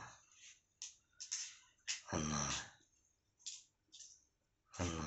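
A cat growling over food: low, drawn-out growls about two seconds in and again at the end, with short hissy noises between.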